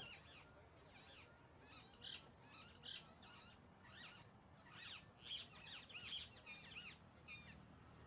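Alexandrine parakeet chicks calling: faint, high, short chirps, several a second, a little louder around five and six seconds in.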